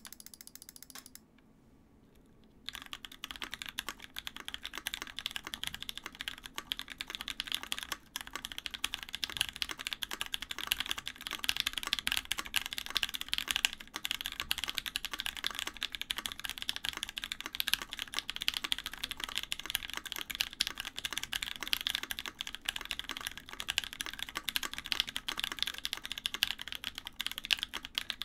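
Fast, continuous typing on a custom mechanical keyboard (Scarlet TKL with a top-mounted aluminium full plate, oiled Pewter switches, JTK keycaps): a dense stream of key clacks that starts about three seconds in, after a short rustle in the first second.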